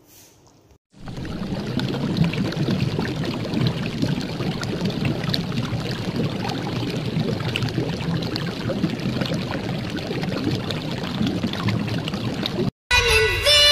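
Steady watery bubbling hiss with many fine crackles, the sound of cooking liquid. It cuts in abruptly about a second in and stops abruptly about a second before the end.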